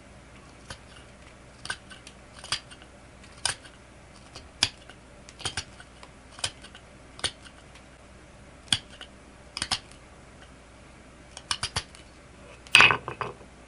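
CPM T15 steel knife with a thin 10-degree edge whittling an elk antler tip: short, sharp scraping clicks, one about every second, some in quick pairs, with a louder clatter near the end.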